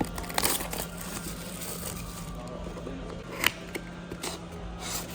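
Hands handling PC parts and packaging: irregular rustling and scraping with a few sharp clicks, the loudest about three and a half seconds in.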